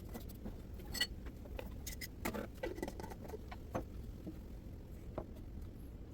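Scattered small clinks and taps of glass canning jars and their metal lids being handled, a few of them ringing briefly, over a low hum.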